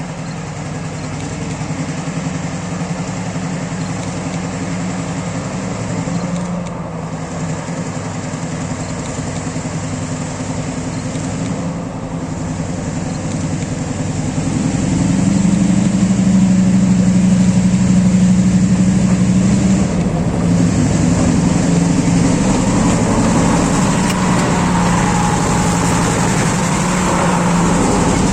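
Class M6 diesel-electric locomotive's EMD engine running under load, the engine note growing louder about halfway through as the throttle opens.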